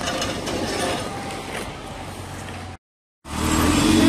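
Street noise with motor engines running. The sound cuts out briefly about three seconds in and comes back louder, with a steady low engine hum.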